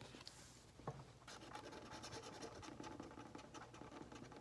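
Faint scraping as the coating is scratched off a lottery scratch-off ticket, in quick short strokes that start about a second in, with a single light click just before.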